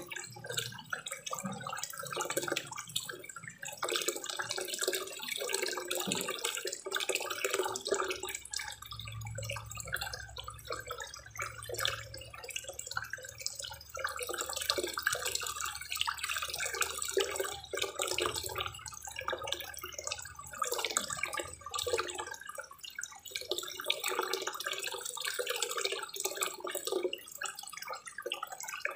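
Water pouring from a spillway into a koi pond, a steady splashing and trickling.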